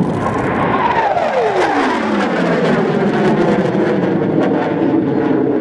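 F/A-18 Hornet jet making a fast pass, its loud engine roar carrying a whine that drops steeply in pitch a second or so in as the jet goes by, then continuing as a steady roar while it climbs away.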